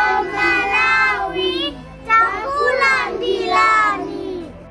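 A group of children singing together, in two phrases with a short break about two seconds in.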